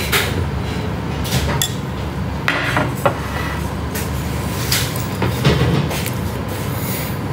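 Metal spoon clinking and scraping against a bowl of rice porridge while eating, in a handful of separate sharp clinks.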